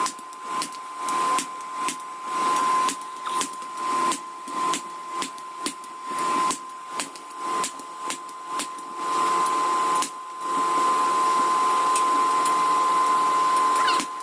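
A motorised workshop machine with a steady high whine, its noise swelling and falling about one and a half times a second, then running continuously for the last few seconds.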